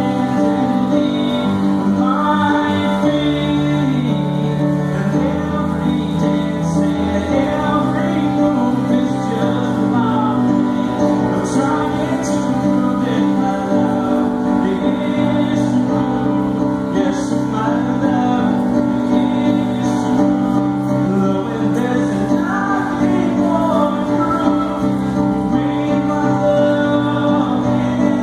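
A man singing while playing a grand piano: held piano chords under a sung melody.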